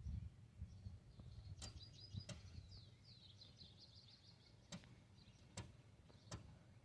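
Faint birdsong, with a short chirping trill about two to three seconds in, and a few sharp clicks scattered through, over a low rumble.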